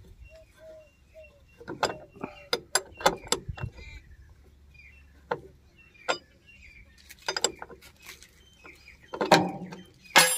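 Metal clicks and clinks of a spanner being fitted and turned on the bolts of a flange bearing housing on a Gill Preet thresher's auger. The sharp clicks come in irregular clusters, the loudest near the end.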